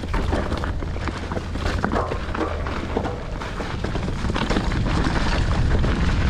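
Mountain bike descending a rough, rocky trail: wind buffets the camera microphone in a low rumble, while the tyres clatter over rocks and the bike gives off frequent short clicks and rattles. It grows slightly louder toward the end.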